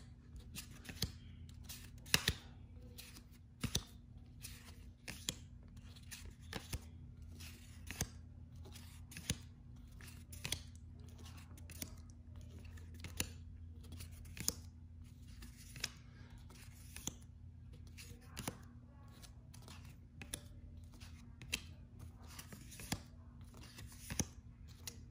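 Paper trading cards handled one at a time, a light snap or flick about once a second as each card is moved off the stack, over a faint steady hum.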